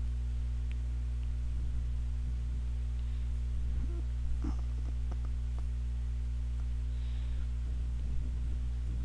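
Steady electrical mains hum on the recording, with a few faint, scattered keyboard clicks as text is typed.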